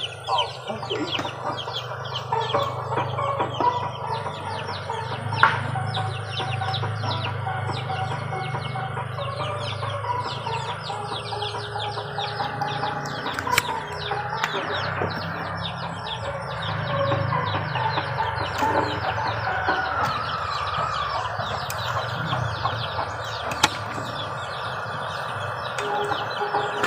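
Chickens clucking, with a steady low hum underneath.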